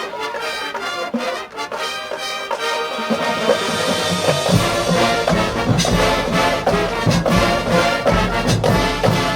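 High school marching band playing its field show: brass with percussion. The texture is lighter at first, then deep bass notes come in about halfway and the sound grows fuller and a little louder, with sharp accented hits.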